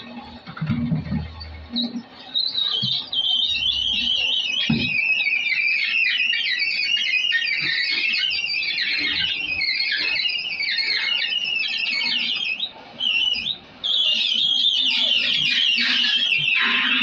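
Screw-type coconut oil expeller pressing grated dried coconut. After a couple of seconds of low knocking and hum, a loud, shrill, fluttering screech sets in. It breaks off briefly a few seconds before the end, then resumes.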